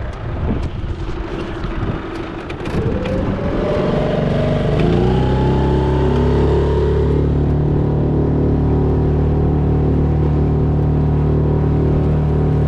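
Yamaha F6 139cc single-cylinder four-stroke outboard revving up, its pitch rising over a couple of seconds, then running steadily with the boat under way.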